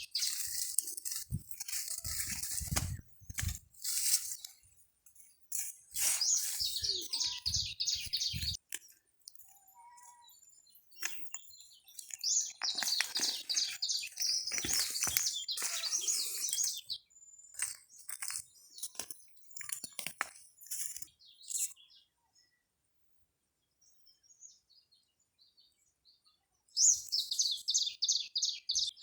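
Small birds chirping in quick runs of high notes, the runs coming in bunches with pauses between, and a few low thumps in the first several seconds.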